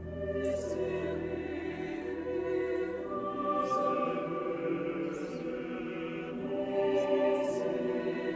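Mixed choir singing sustained, slowly moving chords of choral music, entering right at the start, with the hiss of sung 's' consonants recurring several times. A low drone beneath the voices fades out about three seconds in.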